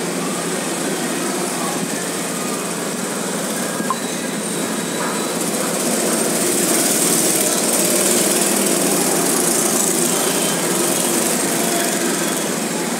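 Small go-kart engines running as karts lap the track, with one kart's engine growing louder as it passes close by about six seconds in, then easing off.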